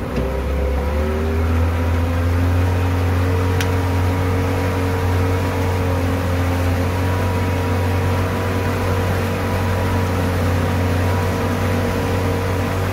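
Pontoon boat's outboard motor running underway: its pitch climbs over the first second or two as it speeds up, then holds a steady low drone.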